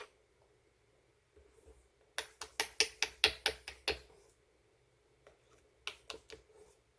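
Slime being played with by hand, giving sharp clicking pops: a quick run of about nine clicks, some five a second, then a shorter run of four.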